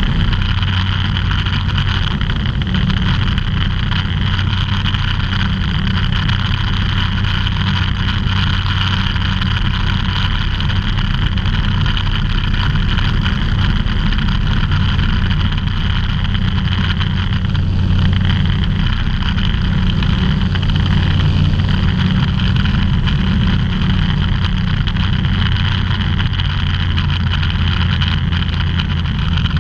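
Ultralight aircraft engine and propeller running steadily in flight, a constant low drone, heard inside the cockpit with airflow noise.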